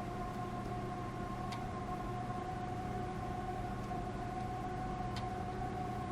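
A steady, unwavering electronic tone with a fainter higher tone above it, played through the Nokia Lumia 1020's small loudspeaker during a speaker test, with two faint ticks about 1.5 s and 5 s in.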